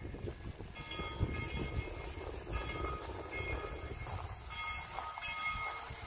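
A steam locomotive's bell ringing repeatedly, about once a second, over a low steady rumble.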